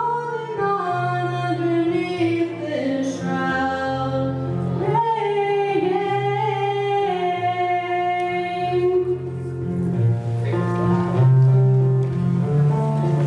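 Solo female voice singing a slow song over held low keyboard chords; the singing stops about nine seconds in and the keyboard carries on alone.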